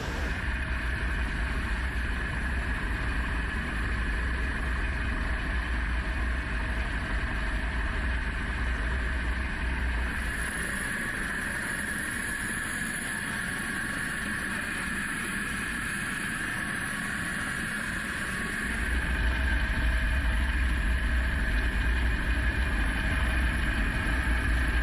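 U.S. Coast Guard rescue helicopter hovering, its rotor and engine making a steady noise heard from the open cabin door during a basket hoist. The sound changes about ten seconds in and grows louder, with a deeper rumble, about nineteen seconds in.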